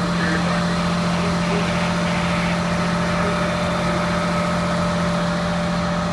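Fire engine's diesel running with a steady, unchanging drone close by.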